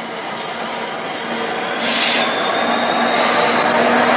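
Class 66 diesel locomotive hauling a freight train toward the listener, its engine running and its wheels on the rails, growing louder as it nears. A faint, high wheel squeal comes in about halfway.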